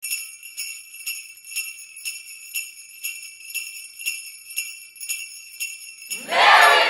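Jingle bells shaken in a steady rhythm, about two shakes a second. A loud rushing whoosh swells in near the end.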